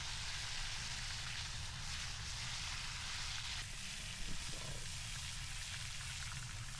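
Food frying in a pan over a fire, a steady sizzle, with a short knock a little past four seconds in.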